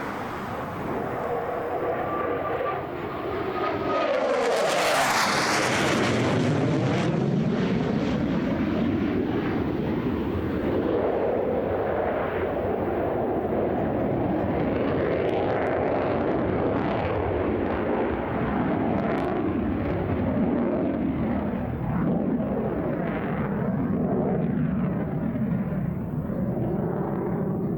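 Jet noise from a MiG-35UB fighter's twin RD-33MK turbofans as it flies a display pass. It passes close about four to five seconds in, with a whine that sweeps down in pitch, and then the loud jet noise carries on, swelling and easing, through the rest.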